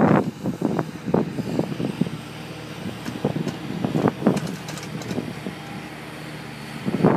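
Diesel engine of a Hyundai R220LC-9A long-reach excavator running steadily as it digs, with short sharp spikes of noise over it. Wind buffets the microphone loudly at the start.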